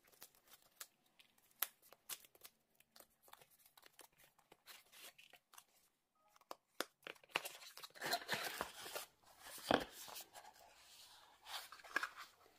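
Cardboard packaging being opened by hand: paper seal stickers peeled off and the box unfolded, heard as faint scattered clicks and scratches, with a busier stretch of paper and cardboard rustling and scraping about eight to ten seconds in.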